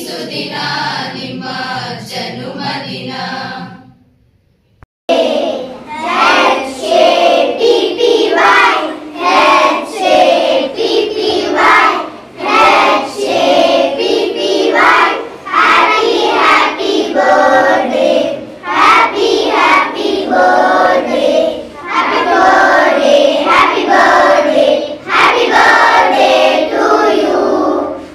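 A group of schoolchildren singing a birthday song together. The singing breaks off about four seconds in, and after a short pause a second, younger group of children starts singing and keeps on.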